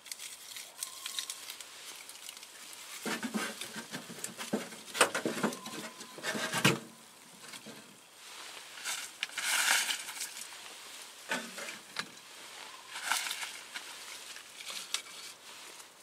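Split wood and spruce feather sticks being handled and laid into the firebox of a homemade steel woodstove, building an upside-down fire: scattered wooden clacks and knocks in clusters, the sharpest about two-thirds of the way through, with rustling and scraping in between.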